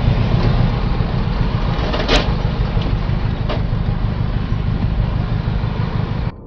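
Steady rumble of a car in slow highway traffic, heard inside the cabin through a dashcam microphone, with one sharp click about two seconds in and fainter ticks after it.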